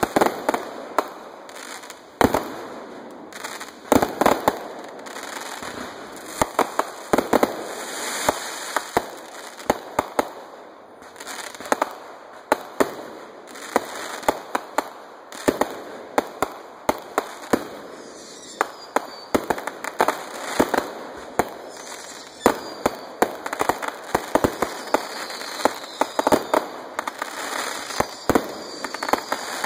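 Ground-launched fireworks going off in a rapid, irregular barrage of cracks and pops. From about halfway through, a few falling whistles join in.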